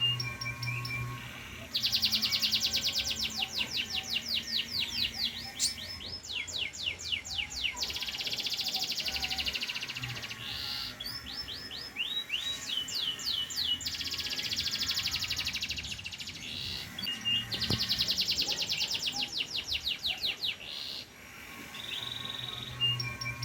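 Domestic canary (a pied 'panda' canary) singing energetically: long phrases of very rapid, high trills and quick repeated sweeping notes, one after another with only brief pauses between them.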